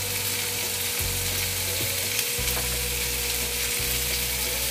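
Shrimp and ground meat sizzling steadily in a hot frying pan in oil and sauce, stirred and scraped with a wooden spatula.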